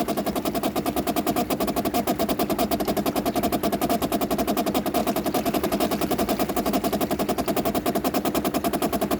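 Water inlet valve of a 2008 Bosch dishwasher chattering in a rapid, even buzzing rattle as water flows through it, the valve body shaking. The sign of a failing inlet valve, which the owner takes for the cause of water coming in when it shouldn't and overflowing.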